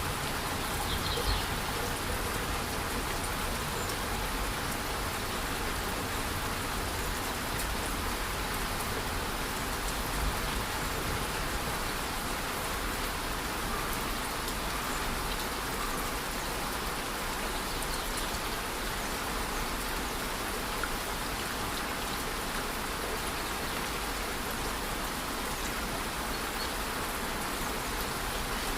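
Steady hiss of falling water: light rain with a waterfall rushing under it.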